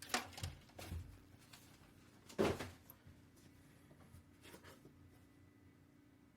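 A few soft handling sounds, brief rustles and knocks of paper and cardboard being moved about, the loudest about two and a half seconds in, over a faint steady hum.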